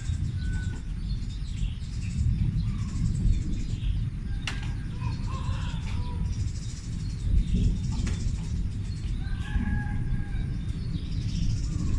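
Continuous low rumble like distant thunder, steady and unbroken, with birds chirping over it.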